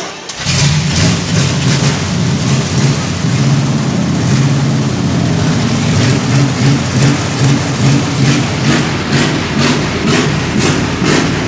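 Ford Galaxie 500 V8 engine running with a deep, even rumble. It comes in suddenly just after the start and holds steady.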